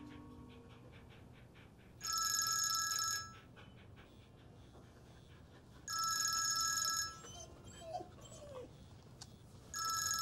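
Mobile phone ringtone ringing three times, each ring a little over a second long and about four seconds apart.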